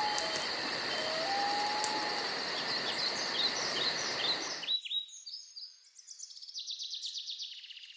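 Outdoor ambience with a steady insect drone and long, sliding whistled bird calls. About halfway through it cuts abruptly to quieter, rapid high-pitched bird chirping.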